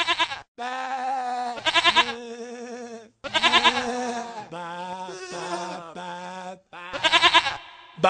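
Sheep-like bleating: about four long, quavering 'baa' calls with short breaks between them, some of them overlapping.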